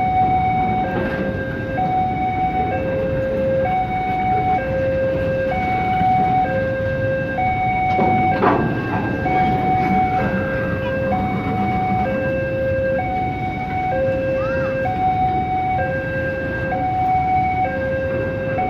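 Two-tone hi-lo warning siren, switching between a high and a low tone about once a second, over steady road traffic noise.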